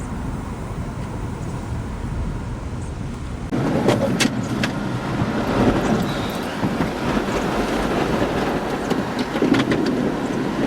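Car moving along with steady road and wind noise. About three and a half seconds in the noise suddenly grows louder and rougher, with scattered clicks and knocks.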